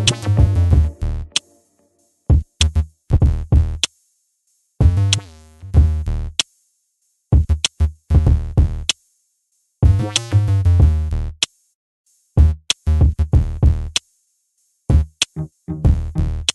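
Background electronic music with drum-machine beats and synthesizer chords, playing in short phrases that break off into silence every second or two.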